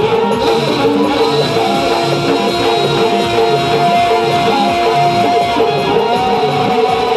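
Live band playing an instrumental passage: long held keyboard notes over a steady hand-drum and drum-pad beat.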